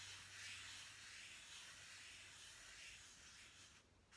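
Faint soft rubbing of a tissue-wrapped fingertip blending chalk pastel on paper, a light hiss that stops shortly before the end.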